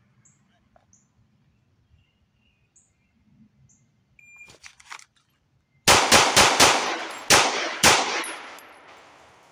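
Shot-timer beep, then about a second and a half later six 9mm shots from an AREX Zero 2S pistol: four quick shots roughly a quarter second apart, a short pause, then two more, the report echoing as it fades.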